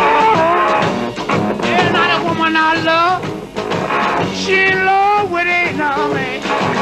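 Live electric blues band: an electric guitar, played with a slide, plays gliding, bending notes, some of them held, over a steady drum beat.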